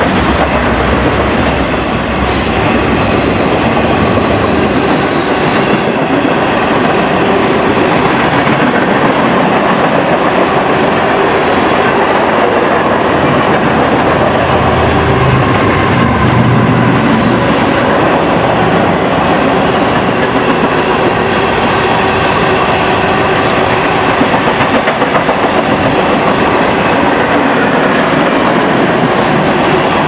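Train rolling past: a loud, steady rumble and rattle of wheels on rail, with thin high wheel squeals near the start and again about twenty seconds in.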